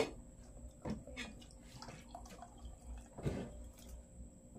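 Buko juice poured from a plastic pitcher into a drinking glass, with knocks and clinks of glasses and spoons on the table. A sharp knock at the very start is the loudest sound.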